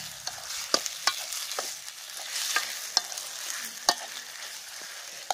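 A metal ladle stirs chicken pieces frying in masala in a large metal pot over a wood fire. The sizzling hiss runs steadily, and the ladle clacks against the pot about six times at uneven intervals.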